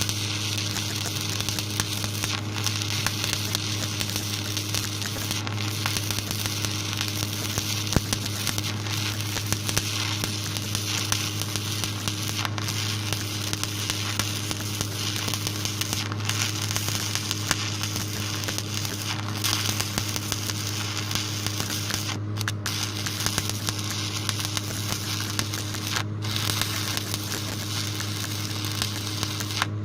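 Stick-welding arc from a 1/8-inch 7018 electrode running a bead on a car bumper: a steady crackling sizzle with a low, constant hum underneath, briefly dropping out a couple of times about two-thirds of the way through.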